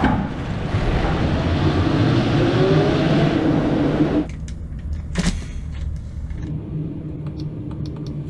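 A truck's drive wheel spinning on the rollers of a test stand, giving a steady rushing tyre-and-roller noise with a faint rising whine. The noise drops off abruptly about four seconds in, leaving a lower hum, and a short sharp noise comes about a second later.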